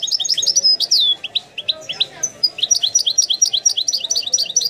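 European goldfinch singing: rapid runs of thin, high, down-slurred notes, about ten a second. The run loosens into scattered notes in the middle, picks up again, and ends on a longer falling note.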